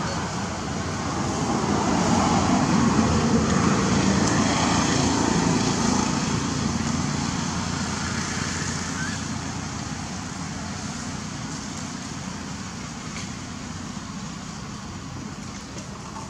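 A passing road vehicle: a rushing noise that rises over the first few seconds, then slowly fades away.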